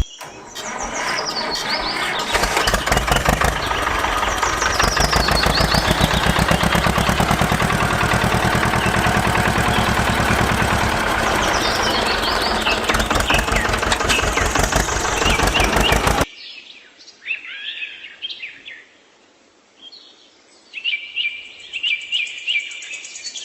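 A small motor running steadily with a fast, even buzz, birds chirping over it. It cuts off suddenly about two-thirds of the way in, leaving birds chirping in the quiet.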